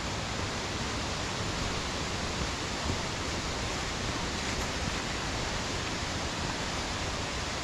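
Steady rush of water from a waterfall and the stream below it, an even noise that neither rises nor breaks.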